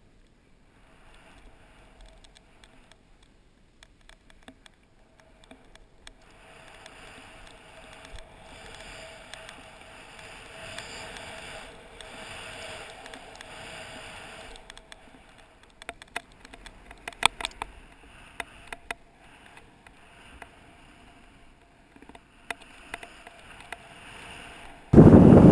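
Snowboard sliding and carving over snow: a soft scraping hiss that swells in the middle, then a run of sharp clicks and knocks. Near the end, a sudden loud rush of wind on the microphone cuts in.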